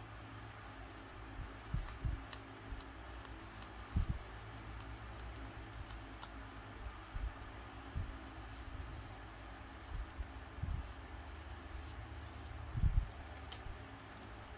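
Small handling sounds of plastic model-kit parts and hobby tools on a work desk: scattered soft knocks and light clicks and scrapes, with a sharper click near the end, over a steady low hum.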